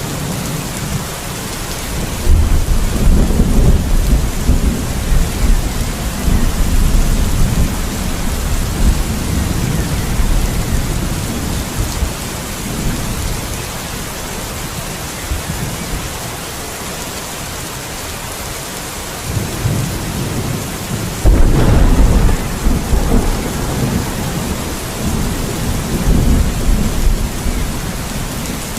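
Steady heavy rain with thunder rumbling twice: a long low roll building about two seconds in and fading by the middle, then a sharper, louder clap-and-roll breaking about three quarters of the way through.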